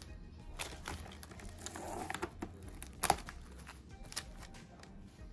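Plastic cling wrap crinkling and crackling as it is stretched over a glass baking dish and pressed down around its edges, with one sharp crackle about three seconds in.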